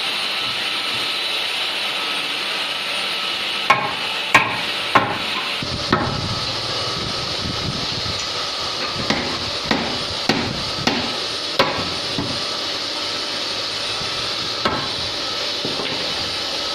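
Hammer blows striking wood during door assembly, first four quick evenly spaced strikes, then after a pause a run of about six more and a single last one, over a steady hiss of workshop machinery.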